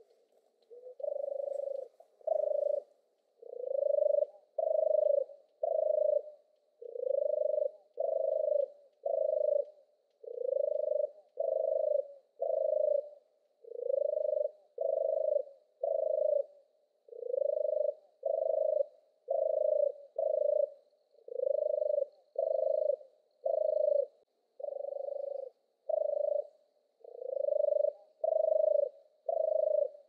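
European turtle dove singing its low, purring song: a run of short rolling notes, about one a second, going on without a break.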